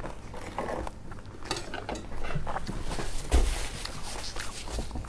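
Soft rustling and small clicks of a paper tissue rubbed over a hand, with a low thump about three seconds in.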